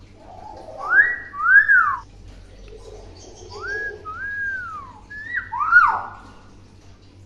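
Common hill myna whistling: three pairs of clear whistles, each rising and then falling in pitch.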